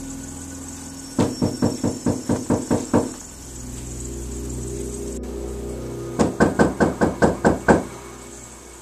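Rapid knocking on a door: two runs of about nine quick knocks each, the first starting about a second in and the second about six seconds in, over a faint steady hum.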